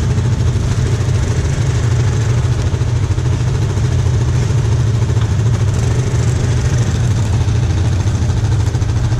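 Quad bike engine idling steadily, with an even low hum and no revving.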